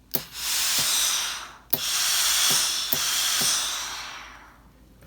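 Steam iron giving out a loud hiss of steam while pressing a seam allowance, in two long bursts with a short break about a second and a half in, marked by a few sharp clicks; the hiss fades out near the end.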